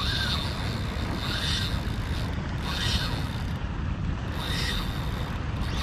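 Fishing reel whirring in four short bursts about a second and a half apart while a hooked jack crevalle pulls on the line, over a steady low rumble of wind.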